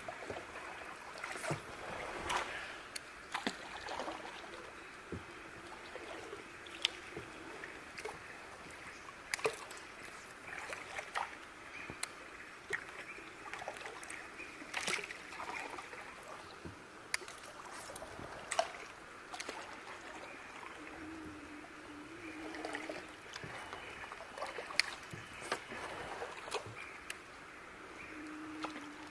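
Water lapping and trickling around a small boat, with scattered light clicks and knocks and small splashes throughout, and a faint low hum now and then.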